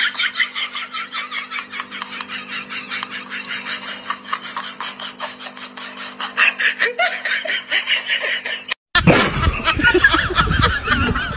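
Laughter in quick repeated bursts over a steady low hum. A short break about nine seconds in, and after it the laughter goes on over louder rumbling noise.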